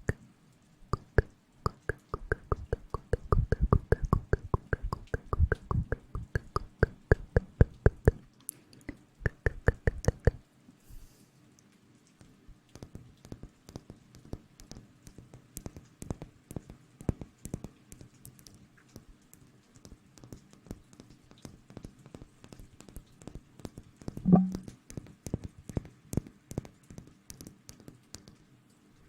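Close-miked ASMR trigger sounds: a fast run of sharp taps and clicks for about ten seconds, then sparser, softer clicks, with one louder thump about 24 seconds in.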